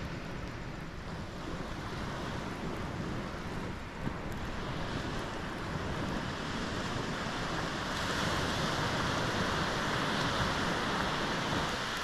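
Ocean surf washing in, with wind on the microphone; the wash grows louder partway through and swells to its loudest in the last few seconds.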